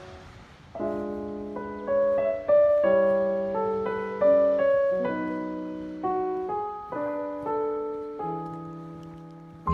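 Background music: slow solo piano, single notes and chords struck about every half second to a second, each ringing and fading away.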